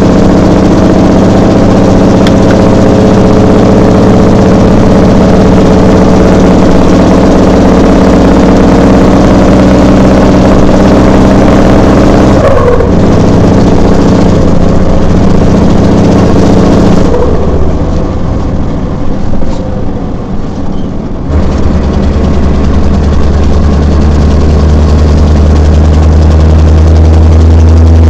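Scania V8 diesel truck engine running steadily and loudly. About seventeen seconds in the sound turns muffled, and a few seconds later a deep, steady low hum takes over.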